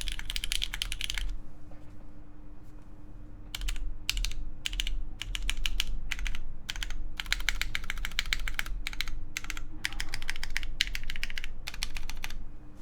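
Typing on a Han Boards Reflection mechanical keyboard with lubed Cherry MX Red linear switches, an aluminium plate and GMK keycaps. A fast run of keystrokes stops about a second in. After a pause of about two seconds, typing resumes in quick bursts with short gaps and stops shortly before the end.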